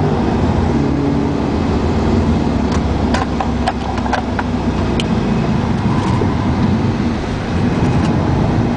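Car engine and road noise heard from inside the cabin while driving, with a few sharp taps about three to five seconds in.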